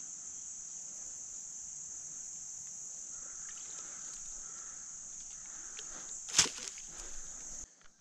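Steady, high-pitched chorus of insects, with one sharp click about six and a half seconds in; the insect sound cuts off abruptly near the end.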